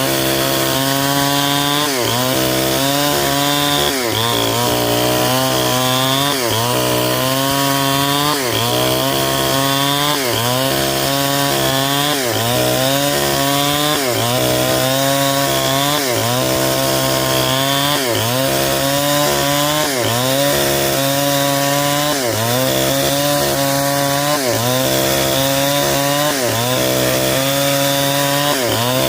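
Stihl 070 two-stroke chainsaw ripping lengthwise through a durian log, running loud and steady with its engine pitch sagging under load and picking up again about every two seconds as the bar is worked through the cut.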